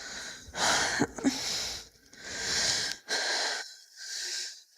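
A woman breathing hard and raggedly, with heavy wheezing breaths about once a second, in distress as she struggles to remember.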